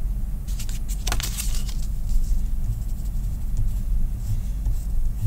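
A steady low hum, with the faint scratching of a pencil drawing short strokes on construction paper, most of them in the first second and a half.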